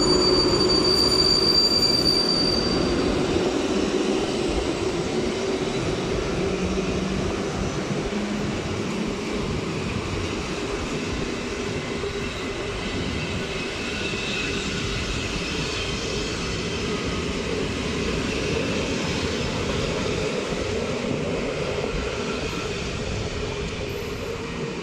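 A PKP Intercity passenger train pulling out of the station, its coaches rolling past in a steady rumble and rattle of wheels on track, behind an EP07 electric locomotive. A high whine dies away in the first few seconds.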